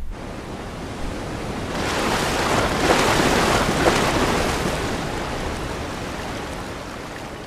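Ocean surf washing onto a sandy beach: a wave's rush swells up to a peak about three to four seconds in, then slowly fades away.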